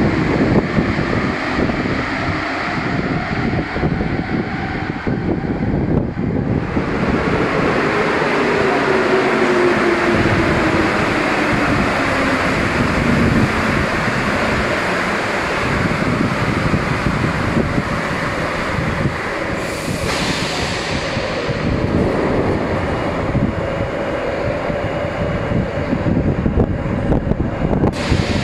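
Alstom NS-16 rubber-tyred metro train running with a rushing rumble, its traction-motor whine falling in pitch as it slows. A short sharp hiss comes about twenty seconds in.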